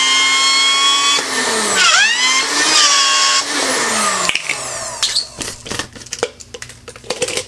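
Magic Bullet Express blender motor running at full speed with its ice-crushing blade, a high whine whose pitch sags and recovers about two seconds in and then winds down near four seconds; the user suspects the blade was slipping instead of crushing the ice. After that, clicks and knocks as the plastic cup is lifted off the motor base.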